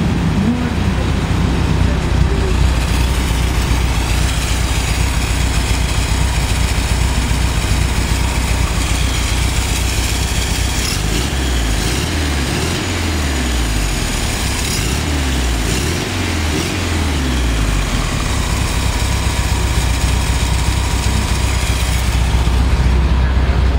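Air-cooled flat-four engine of a vintage Volkswagen split-window bus idling steadily, revved up and down several times about halfway through.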